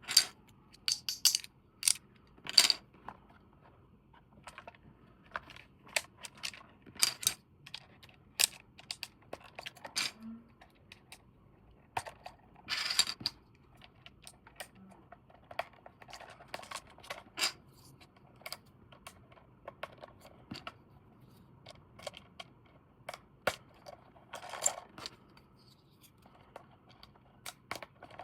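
Toys and their packaging being handled: irregular sharp clicks and taps of hard plastic, with a few short rustles.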